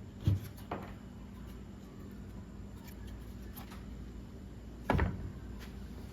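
Pieces of sawn dogwood knocking and clunking as they are handled and set down: a couple of knocks near the start and a louder one about five seconds in, over a steady low hum.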